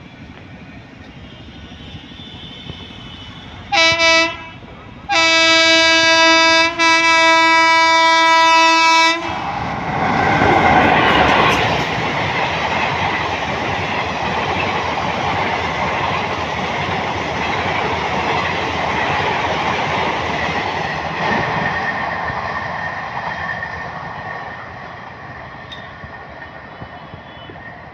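Indian Railways express train passing at full speed. Its locomotive horn gives one short blast, then a long blast of about four seconds, and then the coaches go by with a loud rush of wheels on the rails that fades away over the last few seconds.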